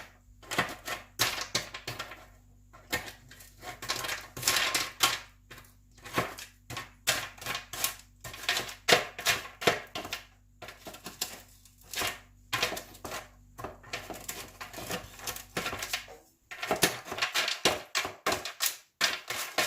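Hard, brittle pieces of fried sugar-coated macaroni crackling and clicking as they are broken apart and clatter against one another, in quick irregular bursts. A steady low hum underneath stops about two-thirds of the way in.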